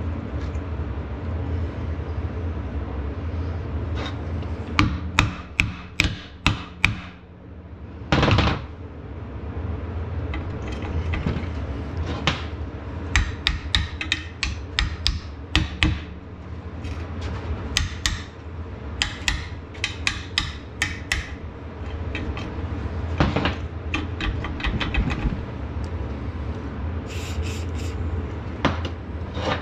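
Clusters of quick hammer blows, steel on steel, on a seized, broken bolt in a Fiat 640 tractor's cast-iron manifold held in a vise. The bolt is struck to jar it loose. A steady low hum runs underneath, and near the end there is a short hiss of aerosol spray.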